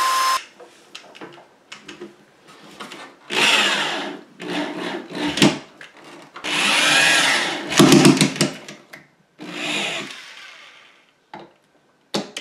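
Corded electric drill run in several short bursts, a couple of seconds apart, at the screw holes of a plastic sink tray laid on a wooden drawer front, fixing the tray with screws. Sharp knocks and rattles of the screws, tray and board come between the bursts.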